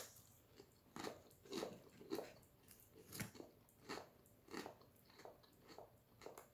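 Quiet, crunchy chewing of oven-baked low-carb tortilla chips, a crisp crunch every half second or so.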